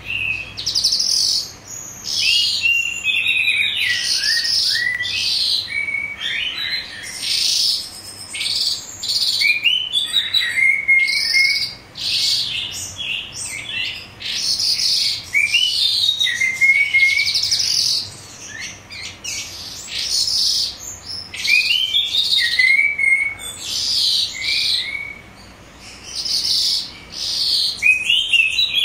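Calandra lark singing a long, rich, continuous song of rapid chirps, trills and quick rising and falling sweeps, broken only by a few short pauses.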